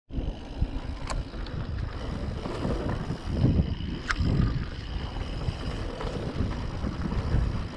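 Wind buffeting the microphone over the rumble and rattle of a mountain bike rolling over rough ground, with a couple of sharp clicks.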